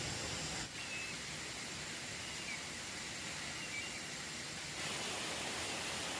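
Steady outdoor rushing hiss that changes level abruptly twice, with a few faint, short, high chirps.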